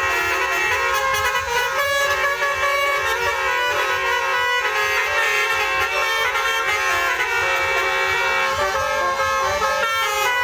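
Bus 'telolet' multi-tone musical horn playing a tune without a break, several horn tones sounding together and stepping from note to note.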